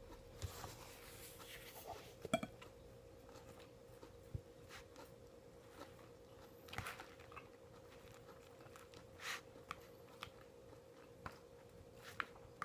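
A person eating: faint, scattered bites and chewing with small clicks and rustles of handling the food, over a steady low hum.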